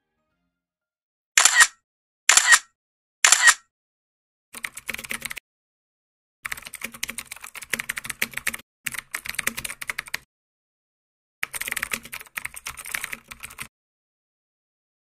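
Keyboard-typing sound effect: three loud, short bursts about a second apart, then three runs of rapid key clicks separated by short silences.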